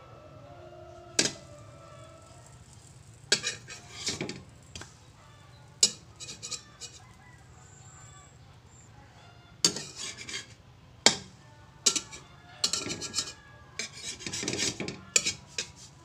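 Metal spatula clinking and scraping against a steel wok while pancakes are turned: scattered sharp knocks and short scrapes, coming more often in the second half.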